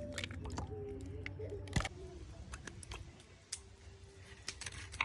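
Eggs being cracked into a bowl: a scatter of sharp clicks and taps of eggshell against the bowl's rim, the loudest a little under two seconds in.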